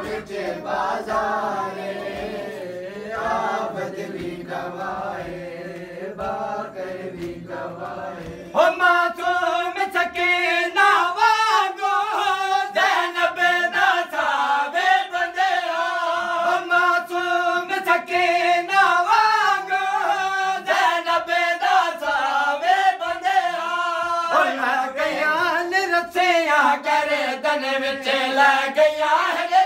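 A group of men chanting a Punjabi noha together. About eight seconds in, the chant grows louder and a steady rhythm of open-hand strikes on the chest (matam) joins it.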